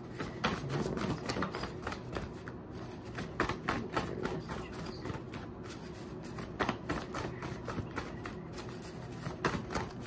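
A deck of oracle cards being shuffled by hand: a long run of quick, irregular card flicks and clicks.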